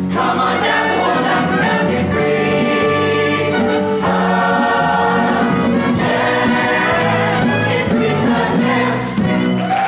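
Stage-musical cast singing in chorus with a pit band, ending the show tune on a long held chord in the second half.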